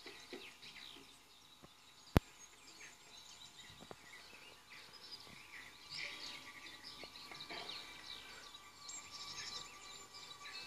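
Birds chirping and singing in a garden, many short calls throughout, with a single sharp click about two seconds in.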